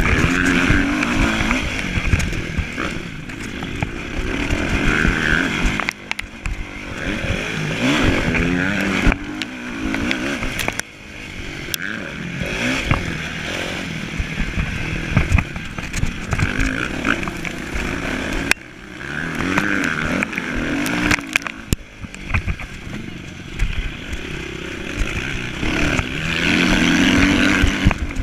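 Onboard sound of a motocross bike racing: the engine revs up and falls back over and over through gear changes, and the throttle is shut off briefly several times. Knocks and rattles from the bike over the rough track run under it.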